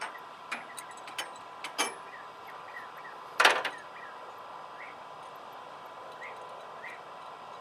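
Steel shackle and cable being handled and hooked up: a few light metal clinks, then one louder clank about three and a half seconds in.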